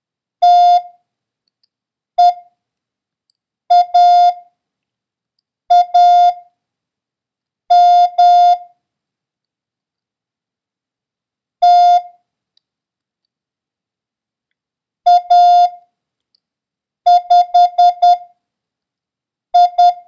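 Morse code practice tones: single characters keyed as a steady, pure beep, one character about every two seconds, with silence between. Near the end comes a run of five quick dits, the number 5.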